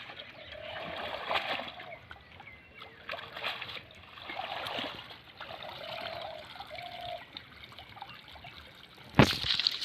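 Water trickling and splashing, with small irregular splashes throughout. A sudden loud splash or thump comes about nine seconds in.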